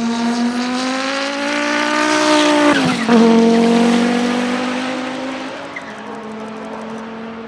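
Race car engine accelerating hard, its pitch climbing and then dropping sharply at an upshift about three seconds in, before climbing again as the sound fades away.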